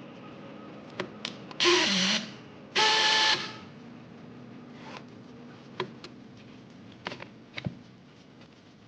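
Fromm P327 battery plastic strapping tool's motor running in two short bursts of about half a second each, with a few sharp clicks before and after.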